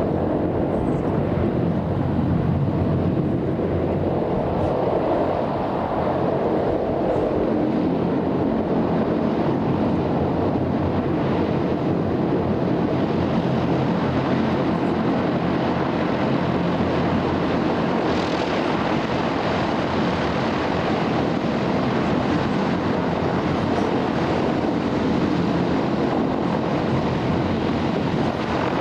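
Large four-propeller passenger hovercraft running at speed: a steady, unbroken din of its propellers, engines and rushing air.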